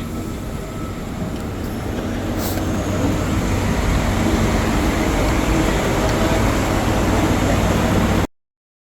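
Steady low rumble of a moving vehicle, growing louder over the first few seconds as it picks up speed, then cut off abruptly near the end.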